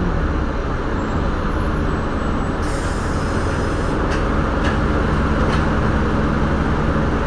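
Steady engine and road rumble inside a city bus as it comes to a stop, with a short hiss of air from the air brakes about two and a half seconds in, followed by a few light clicks as the engine idles.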